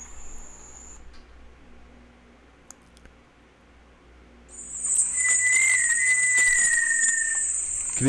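Little tinamou (Crypturellus soui) giving one long, clear whistle about five seconds in; it holds its pitch and then slides slightly lower. A steady high insect buzz sits behind it, dropping out after the first second and coming back just before the whistle.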